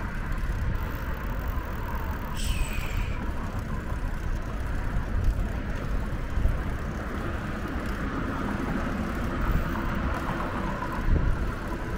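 Steady rumble of road traffic mixed with wind on the microphone of a moving bicycle. A short high squeak falling in pitch about two and a half seconds in.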